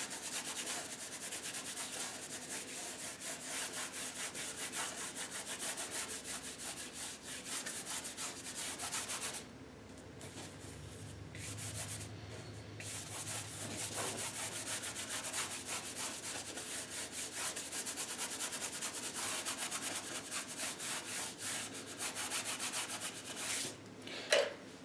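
Paintbrush scrubbing acrylic paint onto the painting in rapid back-and-forth strokes, rubbing white into the blue sky to smooth the gradient. The scrubbing pauses for a few seconds about ten seconds in, then resumes.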